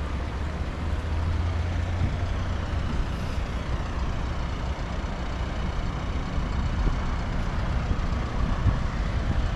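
Steady low rumble of passing road traffic, with a heavy vehicle's engine droning most strongly in the first two seconds, over the rush of river water and wind buffeting the microphone.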